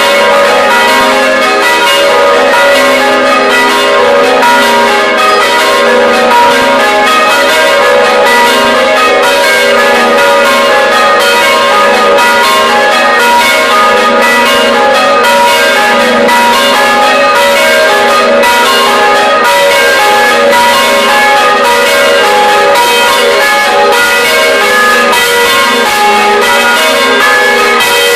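Church bells rung by hand at close range inside the belfry: several bells swinging and striking in a fast, continuous, loud peal of overlapping strokes, several strikes a second.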